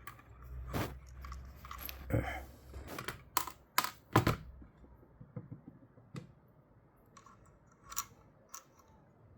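Irregular light clicks and taps of small drone parts being handled during a motor and gear repair, several in quick succession around the middle and two more near the end.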